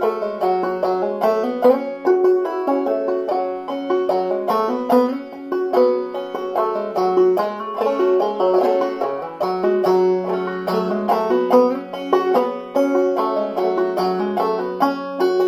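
Banjo played clawhammer style in open G minor tuning (gDGBbD), tuned about a semitone low: an old-time tune as a steady rhythmic run of struck notes, with lower strings ringing on underneath.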